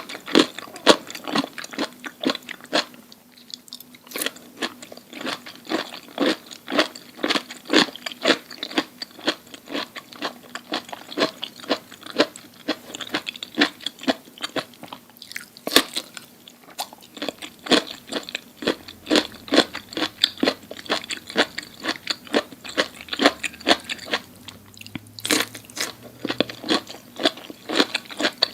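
Close-miked chewing of crunchy food, a quick steady run of loud crunches with a couple of brief pauses.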